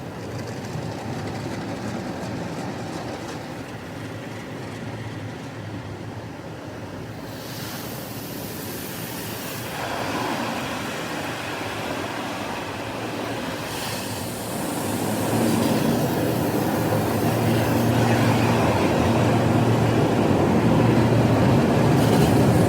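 Automatic car wash heard from inside the car: water spray and washing machinery, with a hiss that comes in about seven seconds in, then growing louder with a steady low hum from about halfway through.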